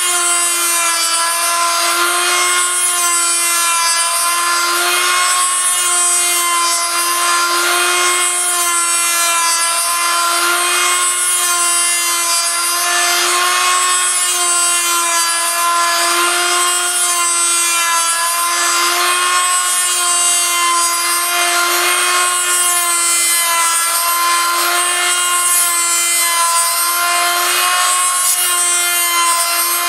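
A rotary tool on a homemade copy mill running at a steady high whine while its bit cuts a spinning wooden lure blank, with a rasping cutting noise that swells and fades every few seconds.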